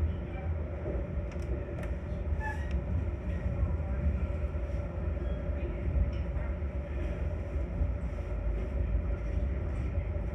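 Metra commuter train heard from inside the passenger car as it runs: a steady low rumble of wheels on the track with a constant hum over it, and scattered faint ticks and squeaks.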